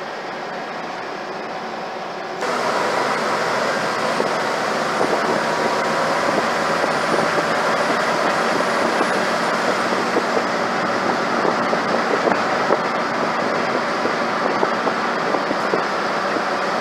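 Cabin noise of a Scania OmniCity single-deck bus on the move: steady engine and road noise with constant rattling of loose panels and fittings, a sign of a worn-out bus. About two seconds in, the noise steps up suddenly and stays louder.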